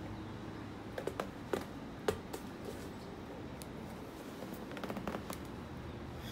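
Scattered light clicks and taps from a dog and a rubber ball moving on a concrete floor, with a small cluster about five seconds in, over a steady low hum.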